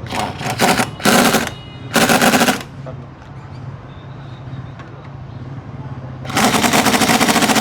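Pneumatic impact wrench rattling in four bursts, three short ones close together and then a longer one near the end, as nuts or bolts are undone on a car's suspension.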